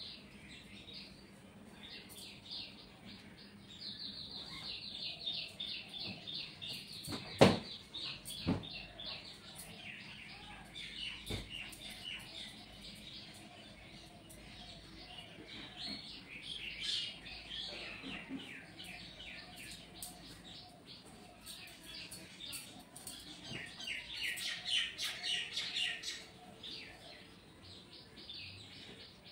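Small birds chirping in quick, repeated bouts that come and go. Two sharp knocks about a second apart, roughly a quarter of the way in; the first is the loudest sound.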